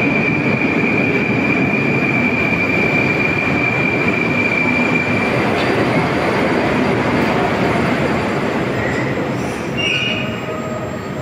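Moscow metro 81-765.4 "Moskva-2019" train pulling into a station and slowing to a stop. The cars make a steady rumble, with a high steady squeal that fades out about five seconds in, then a few short high tones as the train halts near the end.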